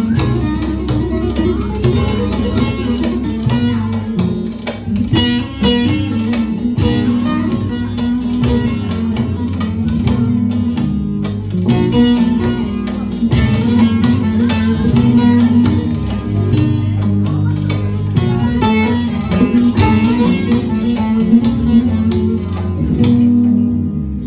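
Instrumental interlude of a Turkish folk song: a plucked long-necked lute, a bağlama (saz), plays a quick melody over a steady accompaniment, with no singing.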